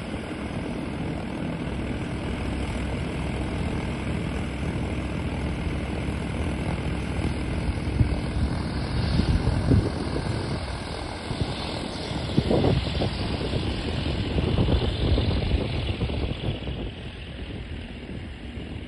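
Propeller aircraft engine running steadily, with a few thumps partway through.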